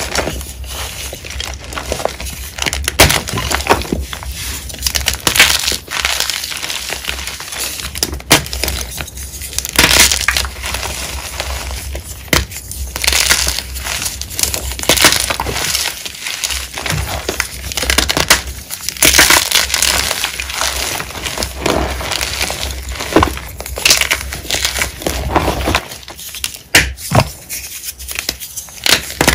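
Blocks of gym chalk being crushed and crumbled between the fingers: a continuous run of irregular, crunchy crackles and sharp snaps as chunks break apart into powder.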